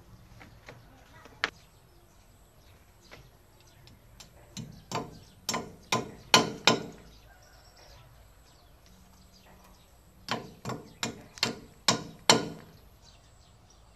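Sharp knocks struck in quick runs, like hammer blows: one about a second and a half in, then about six strikes a little under half a second apart around the middle, and six more near the end.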